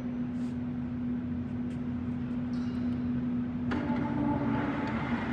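Martin D-80 heavy-duty lathe running with a steady hum. About three and a half seconds in there is a click and the machine sound grows louder and fuller as the spindle is brought up to 40 rpm.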